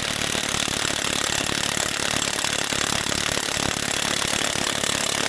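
Cordless 20-volt 3/4-inch-drive impact wrench (Harbor Freight Earthquake XT) hammering continuously on a 32 mm wheel lug nut, a loud rapid rattle that stops abruptly near the end.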